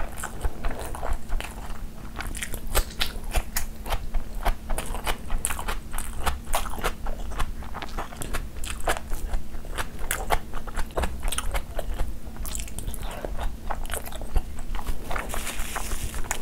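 Close-miked chewing and biting of curried mutton eaten by hand: dense, irregular wet clicking and smacking mouth sounds.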